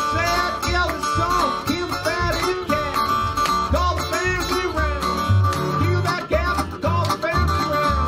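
Country blues played without singing: a resonator guitar in open D picks a busy line with many gliding notes, over single low notes plucked on a washtub bass.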